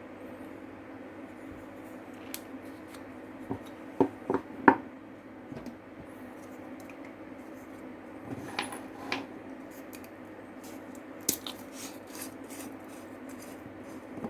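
Scattered clicks and clinks of small hard parts and tools being handled, loudest in a quick group of three about four seconds in, over a steady low hum.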